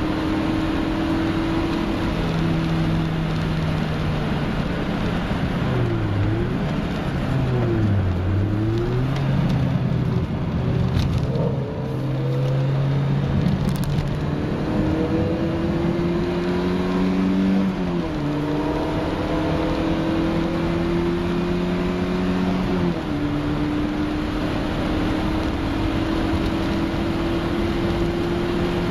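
VW Mk1 Golf cabrio's 1.8i four-cylinder petrol engine pulling hard, heard from inside the cabin over road and wind noise. The revs fall and pick up again twice around six to eight seconds in. Later they climb and drop suddenly at gear changes about eighteen and twenty-three seconds in.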